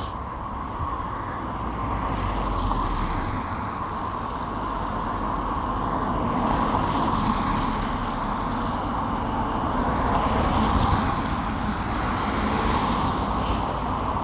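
Road traffic on a wet road: a steady hiss of tyres and engines that swells and fades a few times as vehicles pass.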